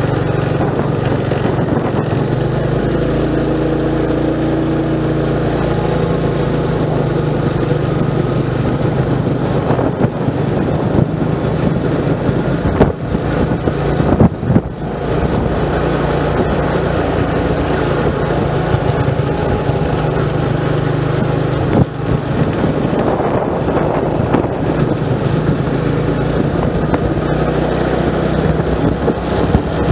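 Motorcycle engine running steadily while riding, its pitch shifting slightly with the throttle, with wind on the microphone. A few sharp knocks come a little under halfway through and again past two-thirds.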